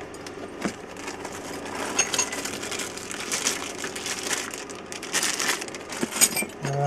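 Rustling, scraping and small clinks of hand tools being handled and packed into a tool roll, with a short low hum right at the end.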